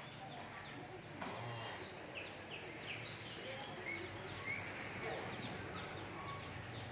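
Small birds chirping with many short, quick chirps throughout, over a faint steady low hum, with a single sharp knock about a second in.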